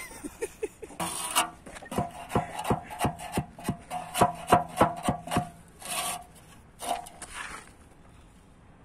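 A wooden tool handle tapping a compressed stabilised earth brick (BTS) down into its mortar bed to bring it level, about three taps a second with a faint ring. A few last taps come near the end.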